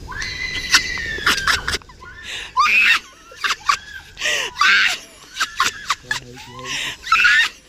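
People screaming and laughing in high-pitched bursts, with excited calls that rise and fall. For the first two seconds a steady high whine runs over a low rumble, then both stop suddenly.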